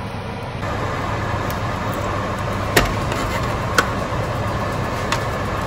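A steady rushing noise with a low hum, broken by a few sharp clicks of kitchen tongs against a foil roasting tray.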